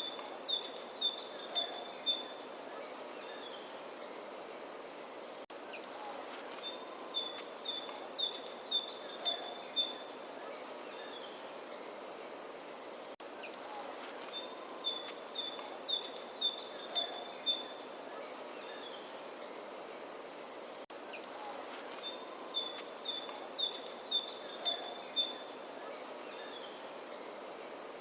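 A songbird singing the same phrase over and over, about every eight seconds: a quick falling slur, then about two seconds of rapid notes alternating between two high pitches, over a soft, steady outdoor background hiss.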